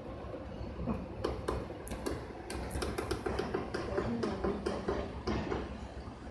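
Light, irregular clicks and taps from handling the FHSM-702 sewing machine, several a second, over a low steady rumble.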